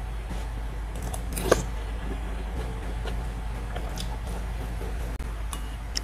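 Metal spoon clinking and scraping against a ceramic soup bowl a few times, with the sharpest clink about a second and a half in, over a steady low hum.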